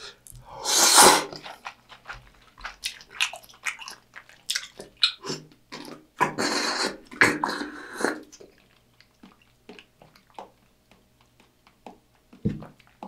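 Close-up eating sounds: a loud slurp of udon noodles, then wet chewing clicks. About six seconds in comes a second long slurp from a small cup, followed by quieter chewing.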